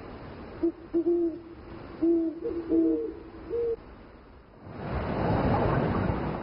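A bird gives a run of short, low hooting calls at two alternating pitches, some of them in quick pairs. Near the end a loud, even rushing noise swells up.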